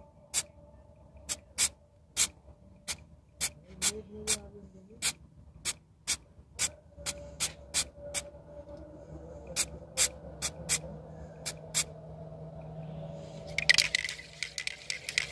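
Aerosol can of Motip heat-resistant exhaust paint sprayed in many quick short puffs, about two a second. Near the end the puffs give way to a denser, continuous crackling hiss.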